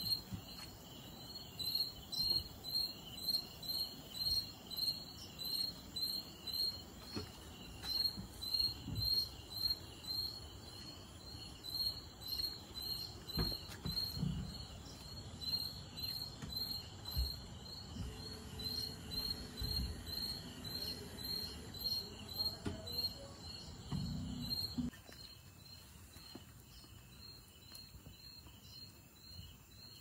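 Crickets chirping in a steady rhythm, about two high chirps a second, with a few soft low thumps beneath; the chirping stops near the end.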